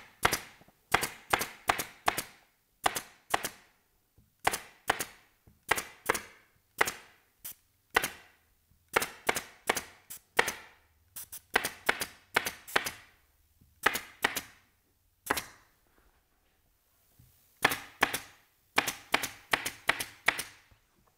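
Pneumatic staple gun firing again and again, sharp shots in quick runs of two to five, driving staples through canvas into a wooden frame. There is a pause of about two seconds near the end before a final run of shots.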